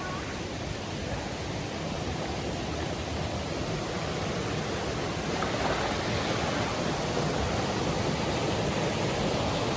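Steady rush of river water tumbling over falls, growing a little louder about halfway through.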